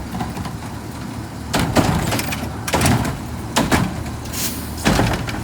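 Autocar ACX garbage truck with a McNeilus front-loader body at work: a series of bangs, mostly in close pairs about a second apart, with a short hiss near the end.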